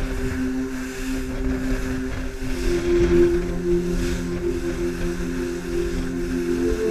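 Motorboat engine droning steadily as the boat runs at speed through choppy sea, its note shifting a little partway through, with a constant hiss of wind and spray over the hull.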